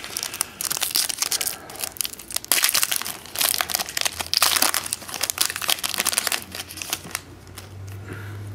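Foil wrapper of a Contenders football card pack being torn open and crinkled by hand, in quick crackling bursts that die down about seven seconds in.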